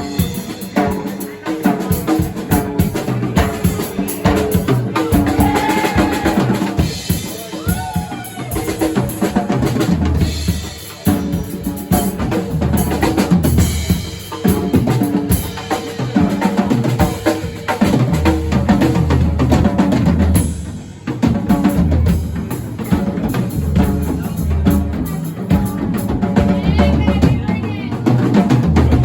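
Music with a drum kit playing a fast, steady beat over a heavy bass line.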